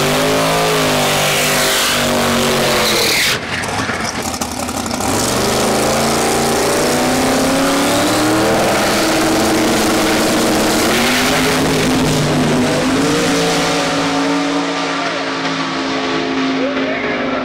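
Jeff Lutz's yellow Camaro drag car's engine running at high revs, rising in pitch, cutting out abruptly about three seconds in, then climbing again and holding as the car makes a full pass down the drag strip. The sound thins out over the last few seconds as the car pulls away. It was a 6.93-second run with tire shake that the driver drove through.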